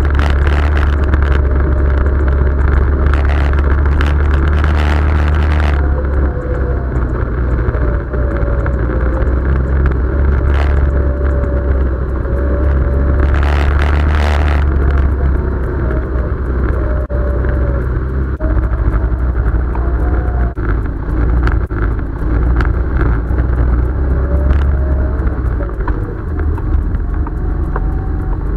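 Side-by-side UTV engine running at trail speed under a heavy low rumble, its note rising and falling with the throttle over rough dirt trail. A few short bursts of noise break in, near the start, around the middle and about halfway through.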